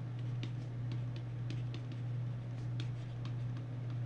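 A stylus tapping and sliding on a tablet screen as words are handwritten, making light irregular clicks over a steady low hum.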